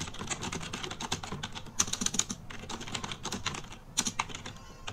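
Typing on a computer keyboard: a quick, uneven run of key clicks with a few short pauses.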